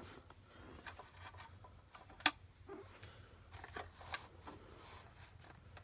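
Faint scattered clicks and taps of small parts being handled, with one sharp click a little over two seconds in, over a low steady hum.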